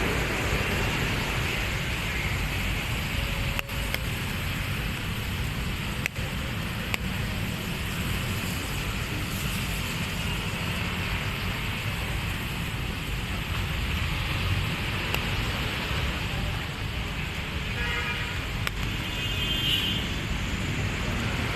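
Steady street traffic noise on a rainy night: cars running past on wet road, with a low rumble throughout.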